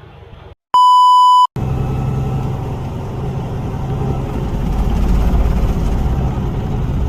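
A loud, steady electronic beep, less than a second long, like a censor bleep. It cuts straight into the steady running of a truck's engine and the road noise of driving.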